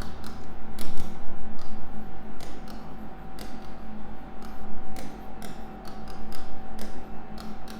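Irregular light taps and clicks, a few a second, over a faint steady hum and a thin steady whine.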